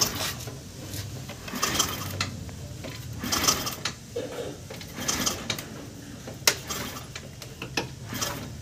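Bajaj NS 200's drivetrain and single-cylinder engine turned over slowly by hand through the rear wheel in third gear: mechanical clicking and rasping that comes in short pulses every second or so, with one sharp click about two-thirds of the way through. With both spark plugs out, the cranking is clearing excess fuel from a flooded engine.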